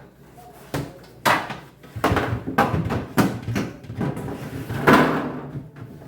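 A run of knocks and bumps from household things being handled, like cupboard doors and containers; the loudest comes about five seconds in.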